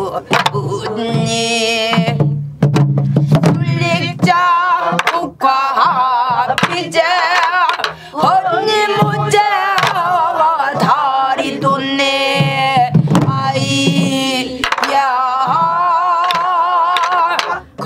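Voices singing a Namdo folk song with a strong, wavering vibrato, accompanied by stick strokes on Korean barrel drums (buk).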